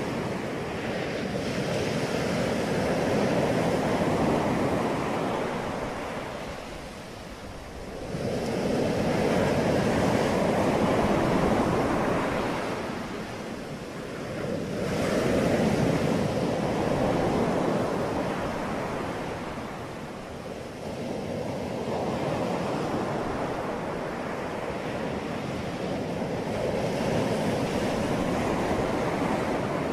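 Rushing, surf-like noise that swells and fades in slow waves, dipping about every six to seven seconds.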